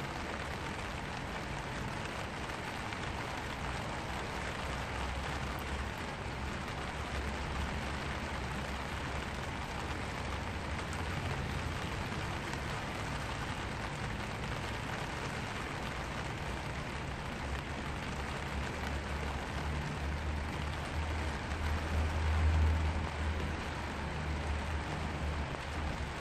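Steady rain pattering on a black vinyl umbrella, heard from underneath the canopy. A low rumble swells briefly about twenty-two seconds in.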